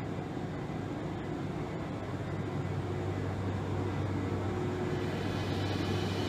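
JR electric express train pulling out of the station: a steady low hum and rumble from its motors and wheels, growing a little louder toward the end as it gathers speed.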